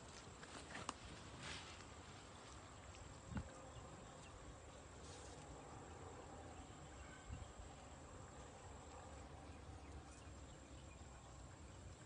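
Faint outdoor ambience with a steady high insect tone, likely crickets, and a few soft knocks or rustles in the first seconds.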